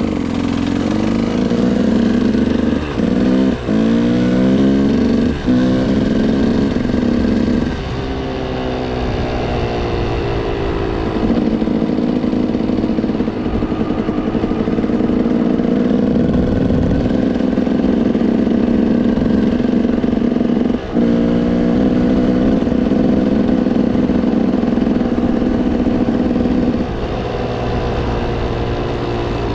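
KTM motorcycle engine running under way, its revs climbing and dropping through quick gear changes in the first few seconds, then settling into a steadier pull with further shifts about a third and two-thirds of the way through.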